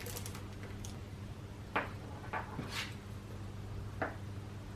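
Light handling noises of electrical wire and heat-shrink tubing: a few small clicks and rustles as stripped wire ends are pulled apart and twisted together, over a steady low hum.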